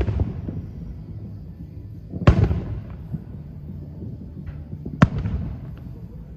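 Aerial firework shells bursting: two loud booms, about two seconds in and about five seconds in, each trailing off in a rolling echo, with a few faint crackles between them.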